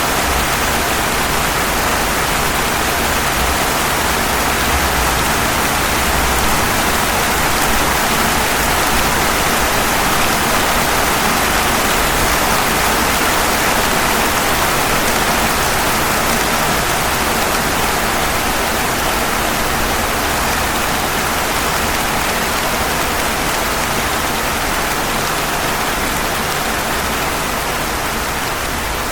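Steady rain falling on pavement, an even hiss of many drops with no breaks.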